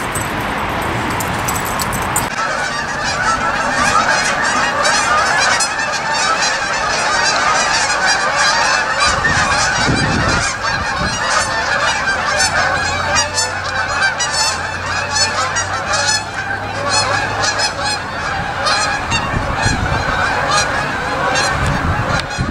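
A large flock of geese flying overhead, many birds honking at once in a continuous, overlapping chorus that starts about two seconds in.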